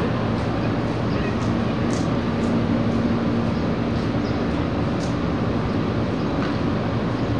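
Steady city traffic noise: a continuous low rumble of passing vehicles, with an engine hum swelling briefly around the middle and a few faint light clicks.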